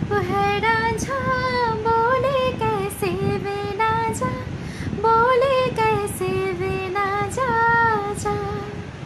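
A woman singing a slow Hindi song solo, holding long notes that slide and waver between words.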